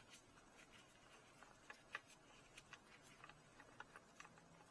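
Near silence, with faint scattered clicks and ticks as a gloved hand unscrews a car's oil drain plug by hand.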